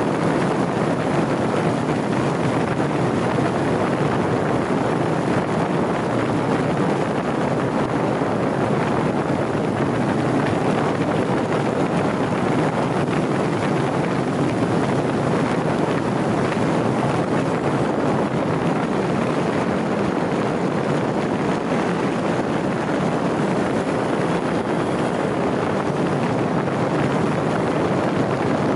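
Steady rush of wind on the microphone mixed with tyre and road noise from a vehicle driving along a race track, with no clear engine note. The level stays even, without revving or gear changes.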